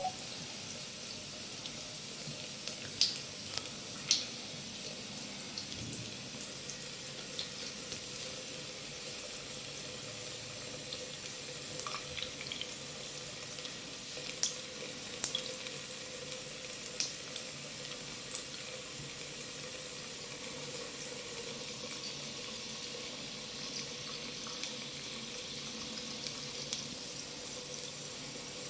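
Water tap running in a steady stream into a sink: an even hiss, with scattered small clicks and splashes.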